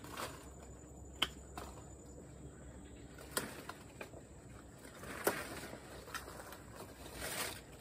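Hand pruning shears snipping small cacao branches: three sharp clicks about two seconds apart, with leaves and twigs rustling between them.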